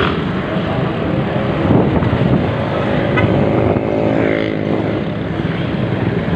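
Motorcycle engine running under way, heard from the rider's seat, mixed with the noise of surrounding city traffic; the engine note shifts slightly in pitch about four seconds in.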